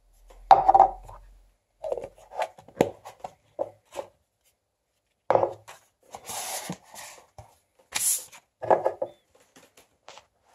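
Plastic reusable coffee cup being handled: a run of sharp knocks and clicks as it is turned over and set down on a table, with short stretches of rubbing and rustling in between.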